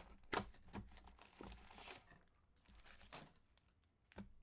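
Cellophane wrap crinkling and tearing as a sealed Donruss Elite trading-card box is opened by hand: a few sharp crackles and a short rustle.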